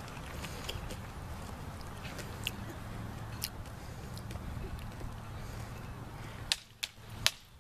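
Steady low background rumble, then near the end three sharp clicks in quick succession as sabre blades strike together.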